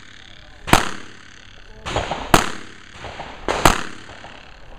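Three revolver shots, each sharp crack trailing off in a short echo, spaced about one and a half seconds apart. Smaller knocks come between them.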